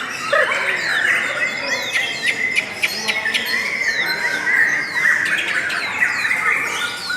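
Lovebirds chattering: an unbroken run of rapid, shrill chirps and squawks, many short notes sliding downward in pitch.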